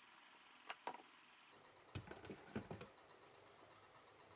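A few faint knocks and clicks of pneumatic nailers being set into plywood slots: two just before a second in, then a small cluster around two to three seconds in.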